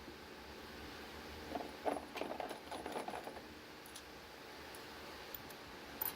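Light metallic clinks and knocks of hand tools and parts being handled, in a cluster for about two seconds starting around one and a half seconds in, with a single sharp click near the end.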